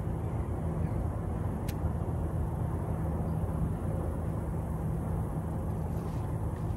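Steady low hum and rumble of a bow-mounted electric trolling motor running, with a single light click about two seconds in.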